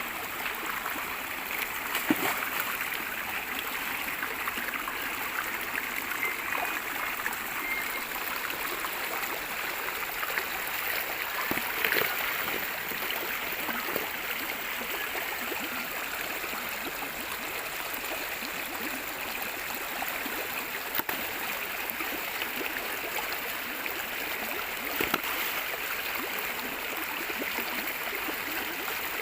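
Water running steadily, a flowing stream with a few brief knocks about 2 and 12 seconds in.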